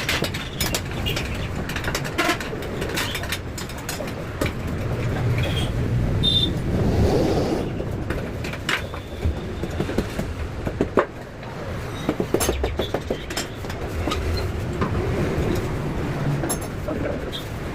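Workshop noise: irregular clicks and knocks over a steady low rumble.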